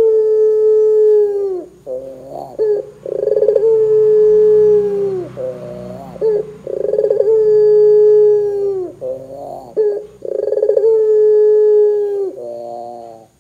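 Barbary dove (puter) cooing: four long coos, each opening with a short rolling note, then held on one pitch for about two seconds before dropping off. Short rising notes sit between them, and a brief last note comes near the end.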